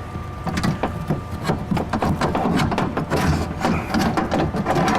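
Irregular metallic clicks, clunks and rattles of the loosened power window regulator being shifted about inside the car's steel door.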